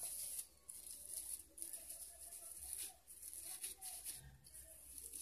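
Thin plastic sheet crinkling and rustling in short, irregular bursts as hands roll raw chicken sausage mixture up in it.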